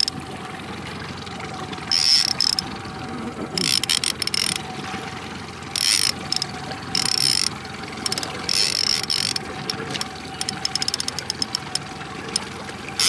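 Trolling reel buzzing and clicking in repeated short bursts as a hooked king salmon pulls against the drag while it is reeled in, over the steady hum of the boat's engine.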